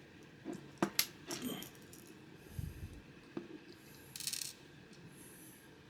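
Small metal and plastic parts of a Zippo fuel canister being handled as a spare flint is fitted into its holder: a few sharp little clicks and a light rattle about a second in, a dull knock in the middle, and a short scraping rustle a little after four seconds.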